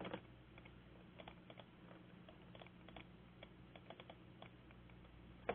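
Faint, irregular computer keyboard typing: a scattered run of soft key clicks over a low steady hum.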